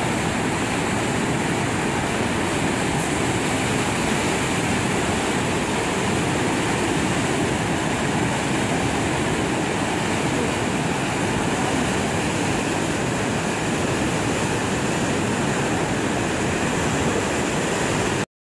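Steady rushing noise of the Jhelum River in flood, its fast muddy water running high through a steep valley; it cuts off suddenly near the end.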